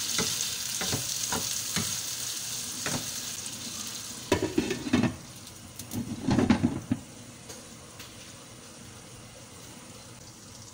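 Hot dog and ham slices sizzling in oil in a non-stick frying pan, with a spatula scraping and tapping against the pan. About four to seven seconds in come a few knocks and rattles as a glass lid goes on, and after that the sizzle is quieter and duller under the lid.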